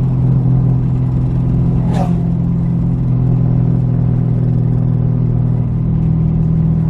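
Car engine running steadily at a constant cruise, a low even drone. There is a brief high chirp about two seconds in.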